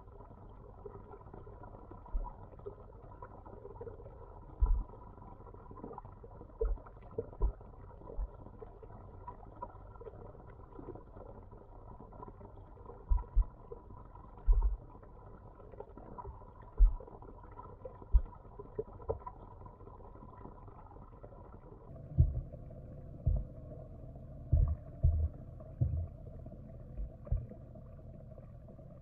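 Muffled underwater sound picked up by a camera submerged in a backyard fish pond: a low steady hum with irregular dull thumps and knocks. The hum changes about three quarters of the way through, and the thumps come more often after that.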